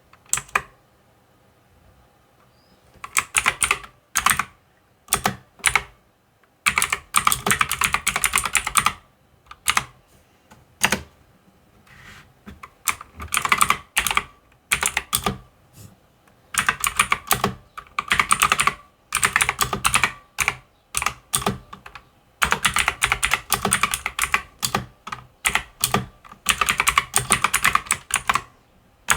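Typing on a mechanical keyboard: quick runs of key clicks lasting one to three seconds, separated by short pauses.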